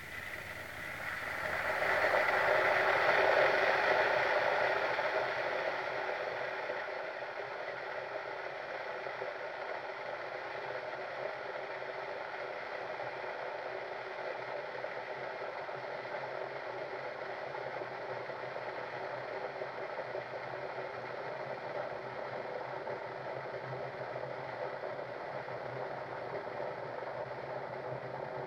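Electric kettle heating water: a steady hissing rumble that swells over the first couple of seconds, is loudest about three to four seconds in, then settles to a steady, slightly quieter level.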